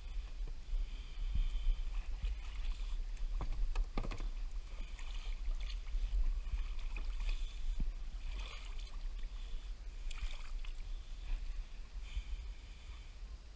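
Small flat-bottomed boat being poled through shallow marsh water: irregular sloshing and dripping from the pole strokes and water against the hull, with soft knocks on the boat, over a steady low rumble.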